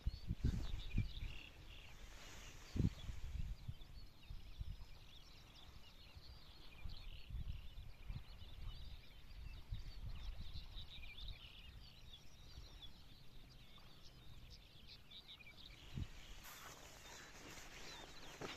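Outdoor shore ambience: wind buffeting the microphone in low gusts, with the heaviest knocks in the first few seconds, while small birds chirp in the background.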